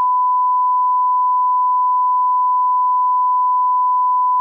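Broadcast line-up test tone: a single steady pure tone played with colour bars at the head of a programme, the reference for setting audio levels.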